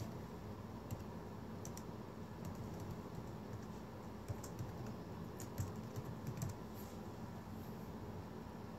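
Faint, irregular light clicks, a few early and then a cluster from about four to seven seconds in, over a steady low hum.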